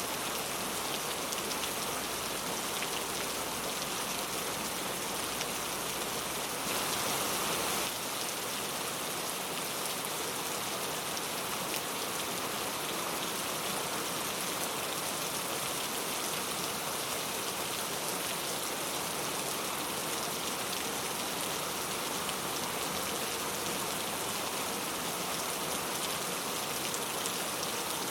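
Steady rain falling, a dense even hiss with many individual drops ticking through it. It swells briefly louder for about a second, about seven seconds in.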